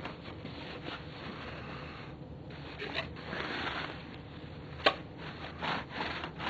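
Soft rubbing and rustling handling noise, with one sharp click a little under five seconds in.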